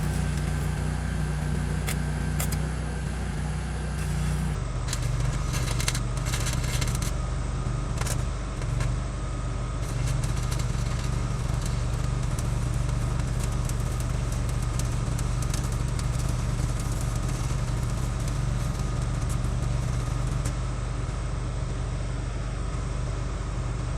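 Stick welding with a 7018 rod: the arc crackles and sputters steadily while a steel engine mount is welded to a truck frame. A steady engine drone runs underneath and changes pitch about four and a half seconds in.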